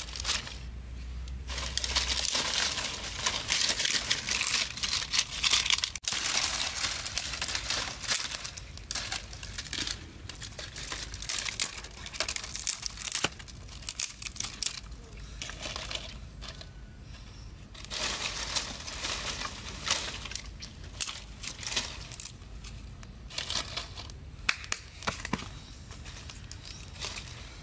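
Dry leaves and twigs rustling and crackling as tinder is lit under a small pile of sticks and the fire catches, with many sharp snaps. It is loudest for a few seconds early on and again about two-thirds of the way through.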